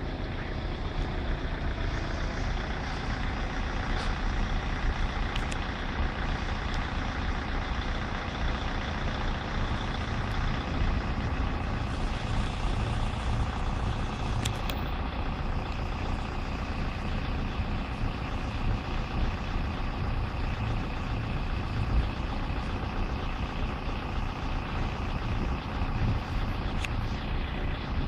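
Steady road-traffic noise with a low rumble, from vehicles idling at a closed level crossing.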